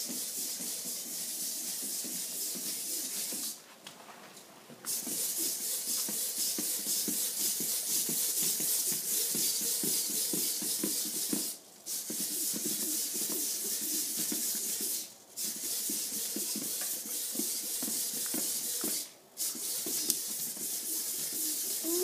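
Hobby servo motors of a small four-legged walking robot whirring and chattering as its legs move. The sound cuts out briefly four times, once for about a second.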